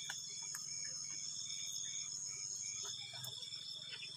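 Night insects calling: a steady high-pitched trill with a short chirp repeating about three times a second.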